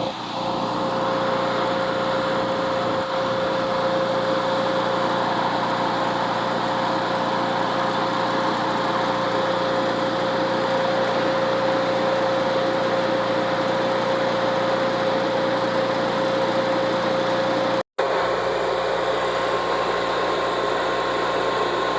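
Aluminum sprinkler pipe being MIG-welded with a spool gun: a steady, dense arc buzz over a constant hum, held without a break apart from an instant's dropout near the end.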